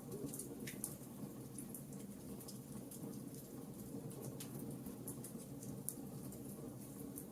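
Wood fire crackling in a fireplace: frequent small, sharp pops and snaps over a low, steady noise.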